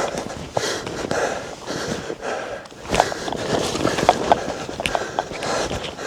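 Footsteps through deep snow, a person walking fast with uneven, quick strides.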